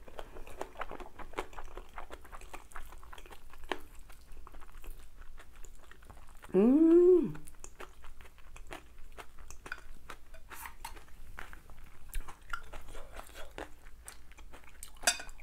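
Close-up eating sounds: chewing and mouth noises of a person eating spicy curry rice, with small clicks of a spoon against a glass bowl. About six and a half seconds in, a short loud hummed vocal sound that rises and then falls in pitch.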